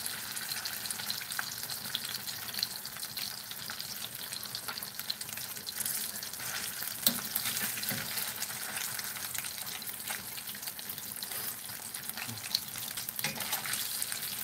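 Breaded chicken fried steak frying in hot shortening in a cast-iron skillet as it is held down: a steady sizzle full of small crackles, with a sharper pop about halfway through and another near the end.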